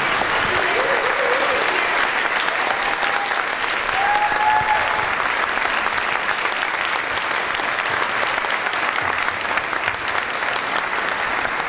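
A large audience applauding steadily, with a few brief voices calling out over it in the first five seconds.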